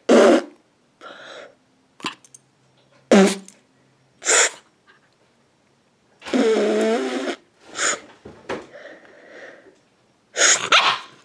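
A person making short, sharp mouth noises at a corgi puppy, a teasing noise that he dislikes: about six sudden bursts a second or two apart, the one about six seconds in drawn out for about a second.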